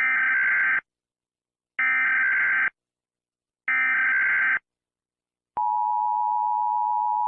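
Emergency Alert System tones: three short, harsh buzzing bursts of digital SAME header data, about a second apart, then the steady two-tone EAS attention signal that starts about two-thirds of the way through. They introduce a new alert.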